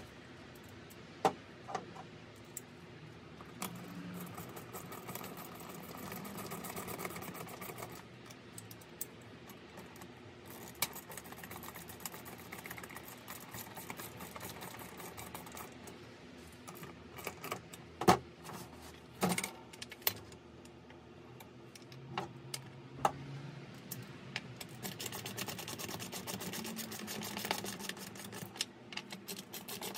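Wrench and steel seat hardware clicking and clinking as nuts are fastened on a motorcycle solo seat's springs and mounting bracket, with a few sharper knocks. A run of fast clicking comes near the end.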